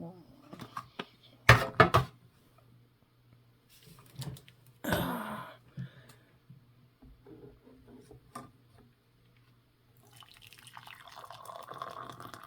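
Sugar being added to a cup of hot coffee: a few sharp taps and knocks, a short rustle about five seconds in, and a steady trickling pour over the last couple of seconds.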